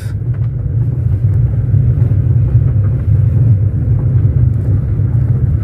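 Car driving slowly along a rough, wet lane, heard from inside the cabin: a steady low rumble of engine and tyres.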